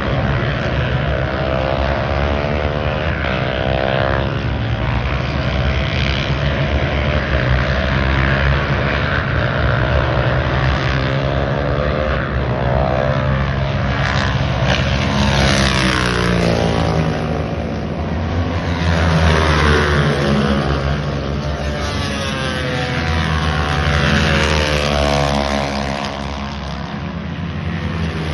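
Several racing motorcycle engines running hard at once, their notes rising and falling as the bikes accelerate, shift gear and pass by.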